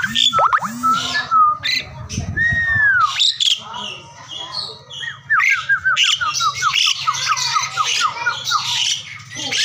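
Asian pied starling (jalak suren) singing: a varied song of clear whistles and harsh chatter, with a quick run of repeated whistled notes from about halfway through.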